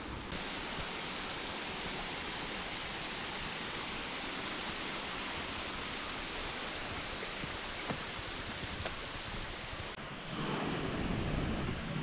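Waterfall cascade rushing: a steady, even hiss of falling water that cuts off abruptly about ten seconds in, giving way to a duller, lower rumble.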